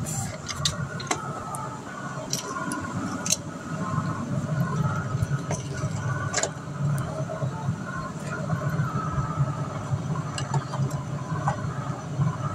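Light clicks and knocks of plastic toy figures being handled and set down on a shelf, over a steady low hum.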